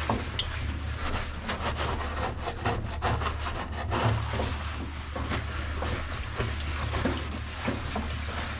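Toothbrush scrubbing the plastic parts of a washing machine: quick, irregular bristle strokes rasping against the plastic, over a steady low hum.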